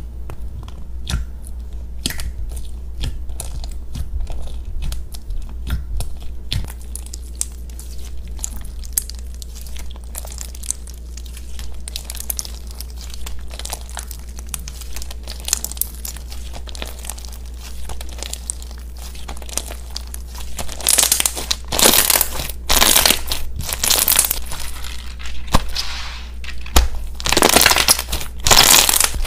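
White slime studded with small blue beads being poked, stretched and squeezed by hand, giving a run of small crackling clicks and pops. Over the last eight seconds or so it turns to louder, wetter squelches as the slime is kneaded between both hands.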